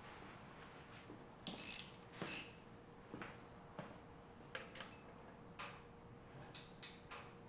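Faint, scattered mechanical clicks, with two short rasping bursts about one and a half and two and a half seconds in, as an LS1 V8 engine is turned slowly over by hand to sweep a dial indicator around the bellhousing bore.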